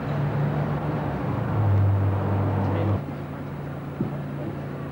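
A steady low mechanical hum over outdoor street noise, like an engine running nearby. A deeper, louder drone swells about one and a half seconds in and cuts off abruptly, and a single knock comes near the end.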